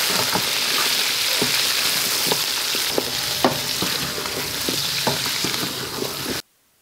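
Raw chicken pieces sizzling in hot oil with fried onions in a metal pot, stirred with a wooden spoon that scrapes and knocks against the pot now and then. The sizzling cuts off suddenly near the end.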